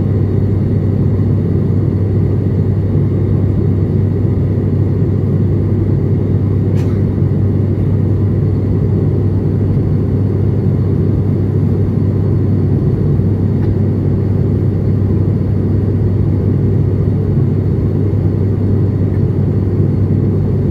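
Aircraft cabin noise in flight: a steady low drone of the engines and airflow, unchanging throughout, with a single faint click about seven seconds in.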